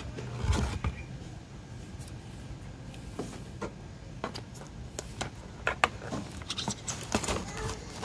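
Unboxing handling noise: a cardboard packing insert lifted out of a box with a dull knock about half a second in, then scattered rustles and crinkles of a plastic bag as the bagged item is gripped and lifted, busiest near the end.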